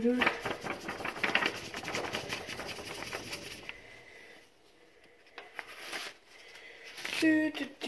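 Paintbrush scrubbing and dabbing on paper: rapid, irregular scratching and tapping that stops after about three and a half seconds. A voice is heard briefly near the end.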